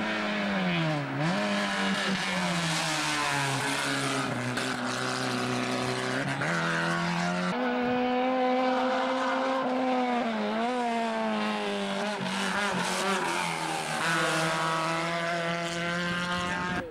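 Race-prepared cars' engines revving hard up a winding hill-climb road. The pitch drops as a car lifts off for a bend and climbs again under acceleration, and the sound switches abruptly from one car to the next, about seven seconds in and again near the end.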